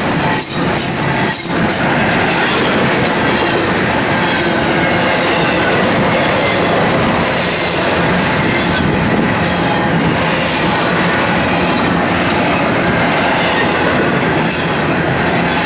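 Double-stack intermodal freight train of loaded container well cars rolling past at close range: loud, steady noise of steel wheels on the rails, with a continuous high-pitched wheel squeal over it.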